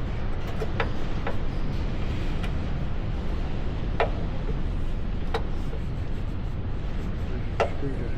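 Steady low rumble with five sharp metallic clinks spread through it, like hand tools knocking against metal parts of the truck.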